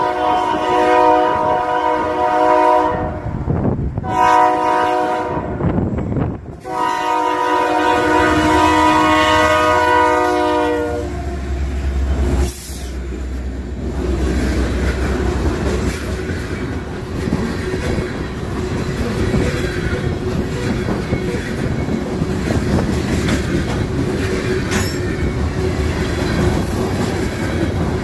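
Union Pacific freight train's locomotive horn blowing for a grade crossing in three blasts, the last one long, stopping about 11 seconds in. The locomotives then pass with a deep rumble, followed by freight cars rolling by with a steady clickety-clack of wheels over the rails.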